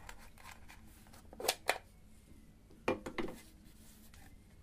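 Small metal clicks from a Soviet Leica-copy rangefinder camera as its baseplate lock is turned and the bottom plate is worked loose: two sharp clicks about a second and a half in, and two more near three seconds.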